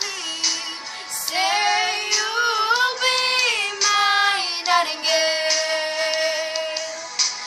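A female voice singing wordless held notes and slides over a backing track, ending on a long held note.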